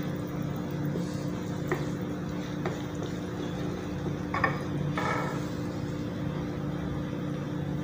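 Wooden spatula scraping and tapping against a karahi as fried eggs in masala are lifted out of the pan, with a few soft knocks. A steady low hum runs underneath.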